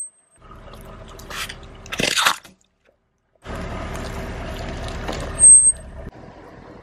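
Car tyre rolling over a glitter ball filled with water beads, giving two short crunching squishes of the ball and beads about one and a half and two seconds in. After a brief silence comes steady low rumble from the rolling car, with a louder short burst about five and a half seconds in.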